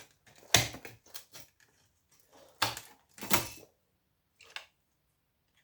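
Hand tools clicking and knocking against a power-supply circuit board while a copper coil is worked loose from it. Three sharper knocks stand out, about half a second, two and a half and three and a third seconds in, with lighter ticks between.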